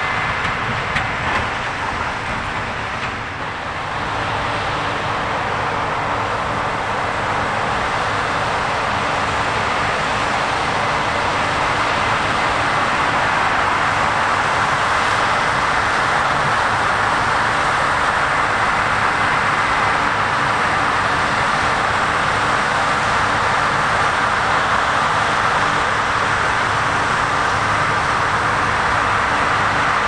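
New Holland CR10.90 combine harvester cutting and threshing wheat, a steady machinery drone mixed with the engine of the John Deere tractor pulling a grain cart alongside. It grows louder over the first dozen seconds as the machines draw near, then holds steady.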